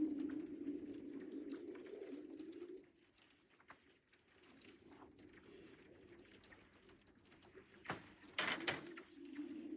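Thawing lake ice singing: a low, steady hum that drops away about three seconds in and carries on more faintly, with scattered small ticks. Near the end comes a sharp crack, followed at once by a brief, louder crackling burst.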